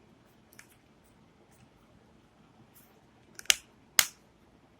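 Back cover of a mobile phone being pressed and snapped into place: a faint click, then two sharp clicks about half a second apart near the end.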